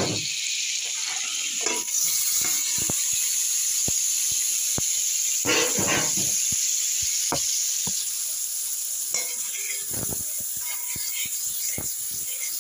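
Butter frying in a metal pot, sizzling with a steady hiss that gets louder about two seconds in as chopped okra and onion go in. Scattered clicks and knocks come from the vegetables and a stirring spoon against the pot.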